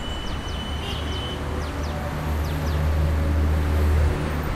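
A low steady rumble that swells from a little after two seconds in until near the end, with a few faint, short, high falling chirps in the first few seconds.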